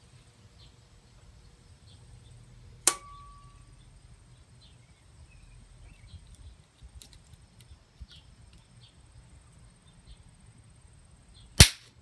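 High-voltage microwave oven capacitors, charged from two series-wired microwave oven transformers, are shorted out and discharge with one very loud, sharp crack near the end. About three seconds in there is a single, weaker sharp click.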